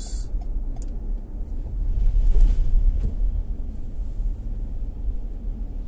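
Road noise inside a moving car's cabin: a steady low rumble of engine and tyres on a wet, slushy road, swelling louder with a hiss about two to three seconds in.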